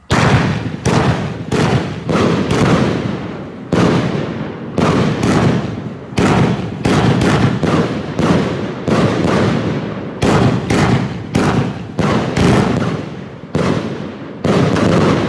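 Funke FC30-16-5 Blaublink-Brokat, a 16-shot, 30 mm consumer firework battery, firing. A rapid string of sharp shots and bursts, about one to two a second, starts suddenly.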